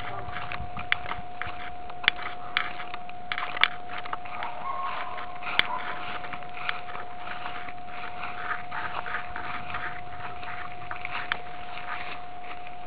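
Six-week-old Great Dane puppies and an adult Great Dane nosing and tussling in grass, heard as irregular rustles and sharp clicks. A steady high hum lies underneath.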